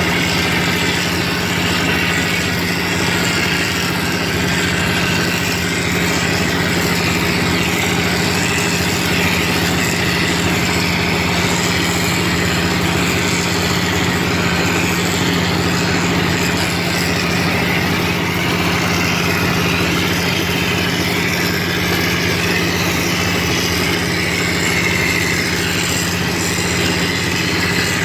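Wall plastering machine's motor running steadily with an even hum.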